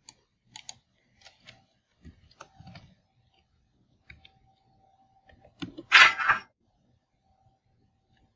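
Computer keyboard typing: a dozen or so scattered keystrokes over the first three seconds and a couple more near four seconds. About six seconds in comes a loud, noisy burst lasting just under a second.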